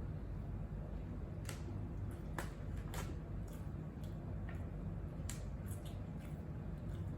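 A person eating close to the microphone: a few scattered soft, wet mouth clicks over a steady low hum.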